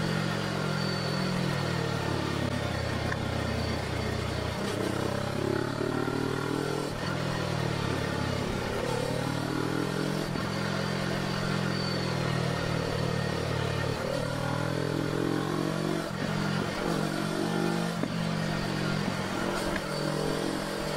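Suzuki GSX250R's parallel-twin engine running while the bike is ridden, its pitch rising and falling repeatedly as the rider accelerates and eases off.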